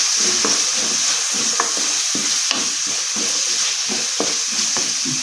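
Chopped coconut pieces sizzling as they fry in hot coconut oil in a pan, being browned, with the pieces stirred around in the pan in short repeated strokes.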